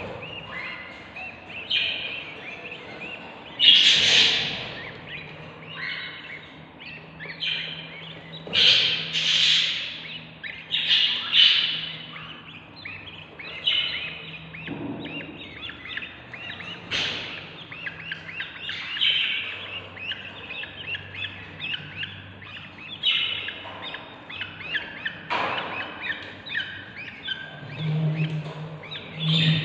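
Budgie chicks in a nest box giving raspy, chattering begging chirps almost without a break, with several louder bursts: hungry babies calling to be fed.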